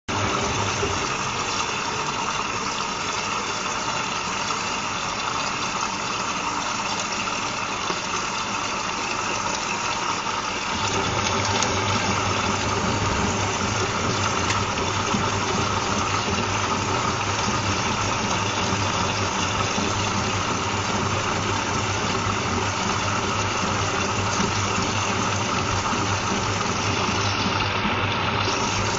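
Whirlpool washing machine running its third rinse cycle: a steady hiss of water, joined about ten seconds in by a low steady hum that makes it a little louder.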